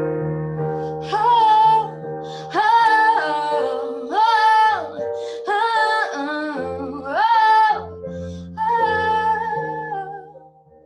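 A series of held, wordless sung notes, about six short phrases of a second or so each, over sustained piano chords: the introduction of a slow acoustic song, before the lyrics begin.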